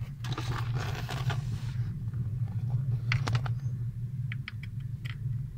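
A test light's wire and clip being handled: light rustling with a few small, sharp clicks, over a steady low hum.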